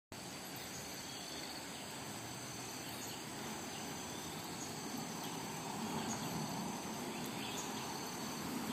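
Insects chirring in several steady high tones over a faint, even background hiss.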